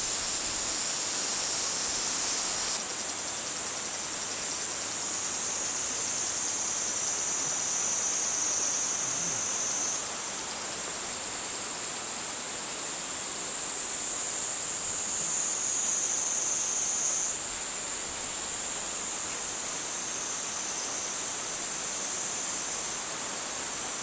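Chorus of cicadas: a steady high-pitched shrill, with single voices joining in and dropping out every few seconds.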